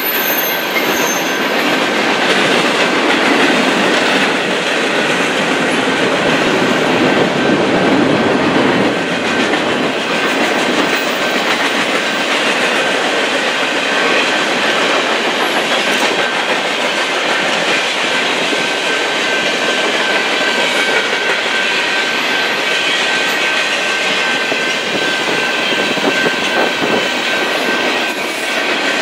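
Freight cars of a long mixed freight train rolling past close by: a steady loud rumble and clatter of steel wheels on the rails, with a thin, steady high-pitched whine running through it.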